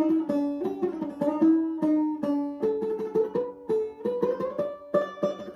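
Banjo being picked: a run of single plucked notes, several a second, some sliding in pitch, with the melody stepping up higher about halfway through.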